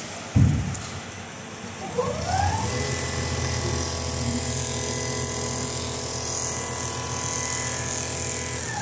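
Computerized rotating-head sewing machine stitching heavy jacket material: a thump about half a second in, then the machine's motor rises in pitch about two seconds in and runs at a steady speed, starting to wind down at the very end.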